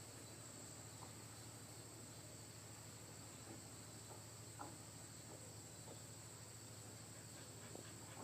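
Faint, steady chirring of insects over a low, steady hum, with a few faint ticks.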